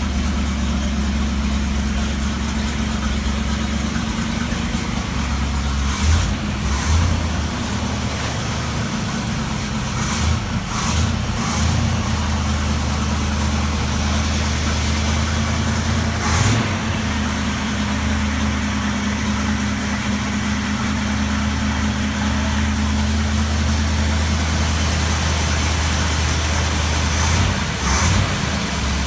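1970 Dodge Super Bee's V8 idling steadily, with a few short bursts of noise about six, ten, sixteen and twenty-eight seconds in.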